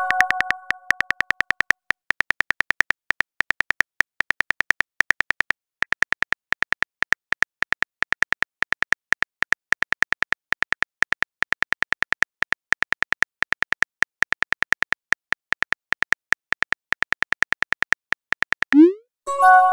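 Phone keyboard typing sound effect: a rapid, even run of short clicks as a long text message is typed out. It opens on the fading tail of a message chime, and near the end a short rising whoosh and a chime mark the message being sent.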